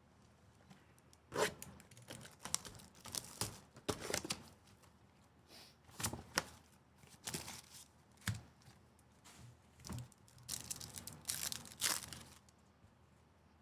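Trading card pack wrappers being torn open and crinkled in hand, in a string of short ripping and rustling bursts.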